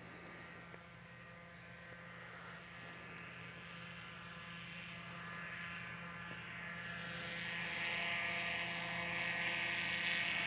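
Propeller-driven airboat (aerosled) on the ice, its engine and propeller running as a steady hum that grows gradually louder, strongest near the end, as it comes closer.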